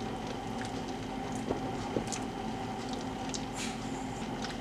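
Pieces of raw pork dropped by hand into a large stainless-steel pot of boiling hominy, making a few soft plops and splashes over the steady sound of the pot boiling.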